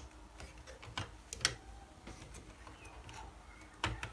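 A few light, scattered clicks and taps as fingers work the side pins and plastic cassette-guide frames of a Sony EL-5 Elcaset recorder's tape mechanism to free it.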